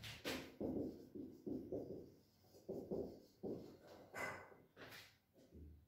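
Marker pen scratching on a whiteboard in a quick run of short, faint strokes, writing out figures.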